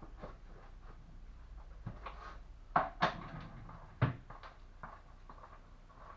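A few sharp knocks and clacks of hard objects being handled and set down, the loudest about three and four seconds in, over faint room noise.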